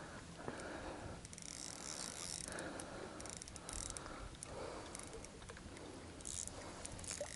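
Spinning reel being cranked to bring in a hooked fish, its gears making several short runs of fine clicking.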